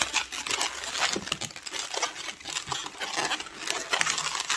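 Inflated latex 260 modelling balloon being twisted by hand into bubbles, the rubber giving a rapid run of small crackles and rubs.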